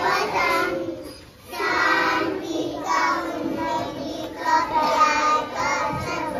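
Children singing a song together, with a short break about a second in before the next line.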